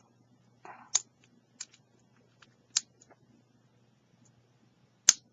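A few faint, separate metallic clicks and a short scrape as a lock pick works the pin tumblers of a Master Lock No. 5 padlock under tension, followed near the end by one louder, sharper click, typical of a pin setting at the shear line.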